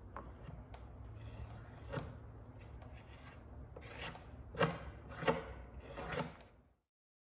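Hand sanding of cured fairing compound on a plywood rudder with a sanding sponge: rasping back-and-forth strokes that grow louder over the last few seconds and then stop abruptly shortly before the end.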